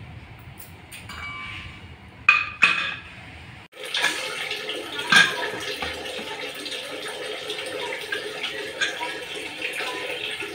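Aluminium stovetop pressure cooker venting steam: a hiss with a whistle tone, then two loud blasts about two seconds in. A steady steam hiss follows, with a sharp metallic clank about five seconds in as the lid is twisted open.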